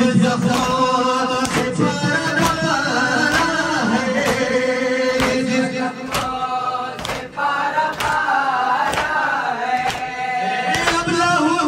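Male voices chanting a noha, a Shia lament, in long held melodic lines, over a steady beat of sharp strikes, about three every two seconds.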